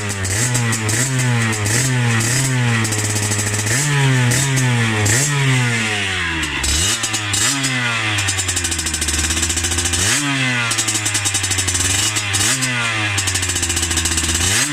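50cc Beta two-stroke motorcycle with a Giannelli exhaust being revved repeatedly: quick throttle blips at first, about one every two-thirds of a second, then fewer, longer revs that climb and fall back to a low idle between them.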